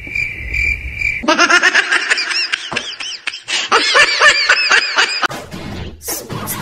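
A short high tone pulsing three times, then several seconds of high-pitched, quick repeated giggling laughter.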